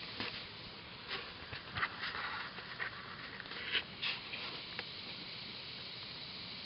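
Dogs digging in loose soil: irregular scratching of paws and scattering dirt, a run of short sharp scrapes that stops about five seconds in.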